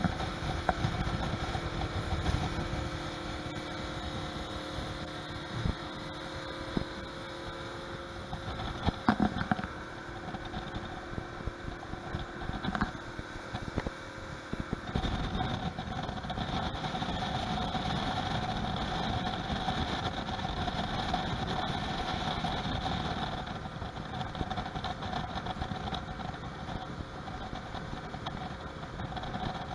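Yamaha 115 hp VMAX outboard motor running at speed, its steady engine tone laid over rushing wind and water, with a few thumps as the hull hits the chop. The engine tone shifts about halfway through.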